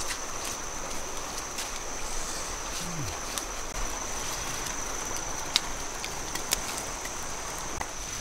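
Outdoor riverside ambience: a steady high-pitched insect drone over a faint hiss, with scattered sharp crackles from the small wood fire under the grilling catfish. A brief low falling sound comes about three seconds in.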